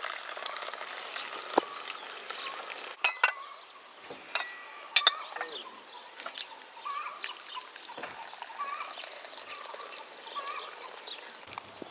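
Porcelain teacups and teapot clinking against saucers: a few sharp clinks about three to five seconds in. Birds chirp faintly between them.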